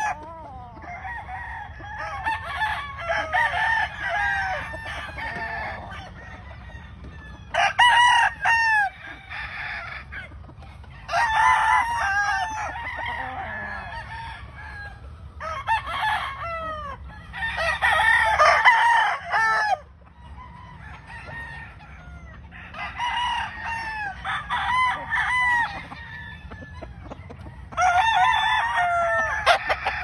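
Several gamefowl roosters crowing, their crows overlapping in bursts every few seconds.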